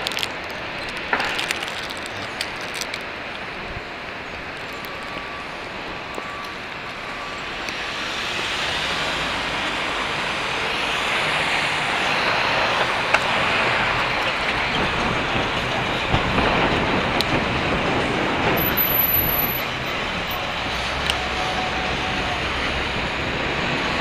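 City street traffic heard from a moving bicycle: a steady rumble and rush of passing vehicles that grows louder about eight seconds in.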